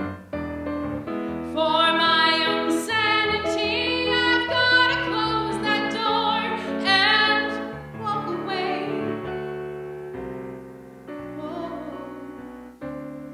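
A woman singing a show tune with a wide vibrato over live piano accompaniment, holding long notes; the voice drops away in the last few seconds and the piano fades under it.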